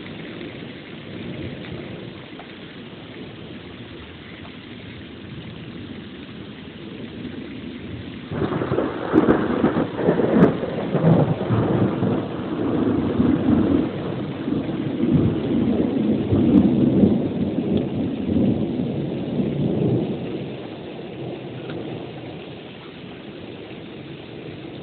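Thunder over steady rain. It breaks suddenly about eight seconds in with a few sharp cracks, then rolls and rumbles loudly for some twelve seconds before dying away.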